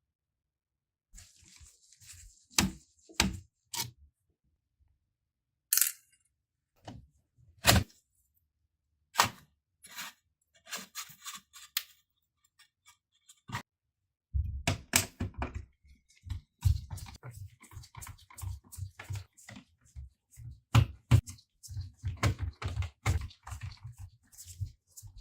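Clicks, knocks and light scraping of a laptop being handled and worked on, then about halfway through a run of rapid clatter like keyboard keys being pressed and tapped.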